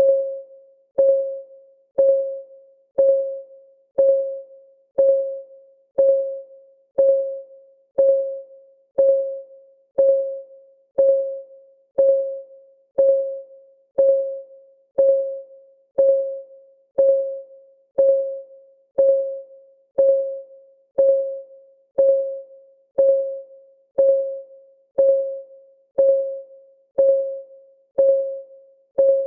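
Clock-ticking sound effect: a short, pitched tick once a second, each starting sharply and dying away quickly, at an even steady pace.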